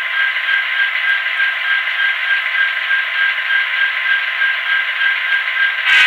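Soundtraxx sound decoder in a model GP60 diesel locomotive playing a steady diesel engine sound through its small speaker, thin and tinny with no bass. It gets louder just before the end.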